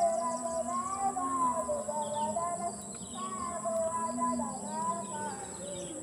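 Pujian, the devotional chanting before the Asr prayer, sung by one voice over a mosque loudspeaker in long, slowly wavering notes. A steady high insect buzz runs behind it.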